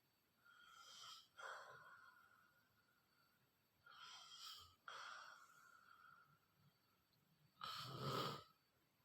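Someone asleep and snoring: three slow, rasping breaths, each trailing off in a thin whistle, with the loudest and roughest snore near the end.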